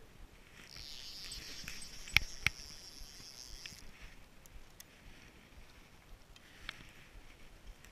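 Fishing line hissing off a spinning reel's spool for about three seconds as the rig goes out, with two sharp clicks of the reel in the middle.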